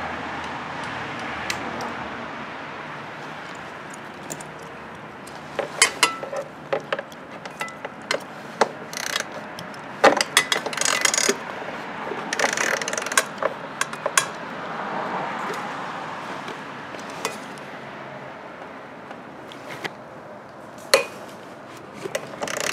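Socket ratchet clicking in short runs as 13 mm exhaust mounting bolts on a scooter are worked loose. The bolts are on tight. The clicking starts a few seconds in and comes in dense runs around the middle, with a few single clicks near the end.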